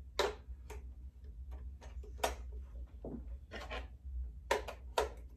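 Irregular clicks and clacks of metal beaters being pushed into a hand mixer, taking several tries to snap in.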